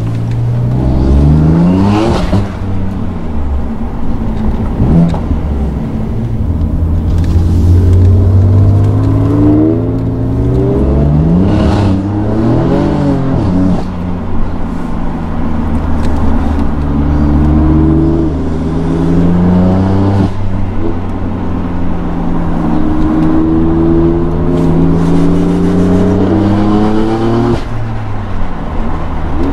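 BMW M car's engine and exhaust heard from inside the cabin, accelerating hard through the gears: the revs climb and fall back at each shift, several times over.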